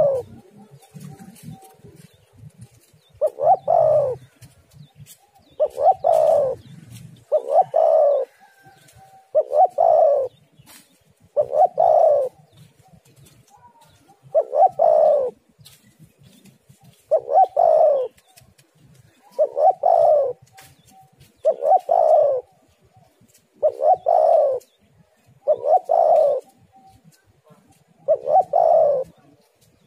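Spotted dove (tekukur) cooing over and over: the same short coo phrase about every two seconds, fourteen or so times.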